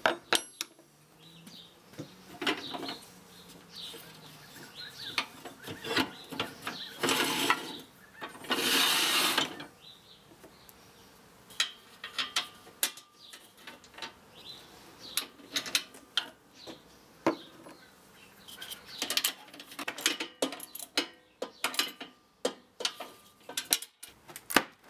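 Metal clicks, taps and scrapes of bolts, nuts and a spanner being handled and fitted to the steel bed of a GMC ML100 wood lathe, bolting its two halves together. Two longer rasping stretches come around eight seconds in.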